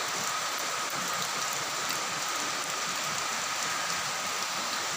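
Rain falling steadily on a clay-tiled roof and the trees around it: an even, unbroken hiss, with a faint steady high tone underneath.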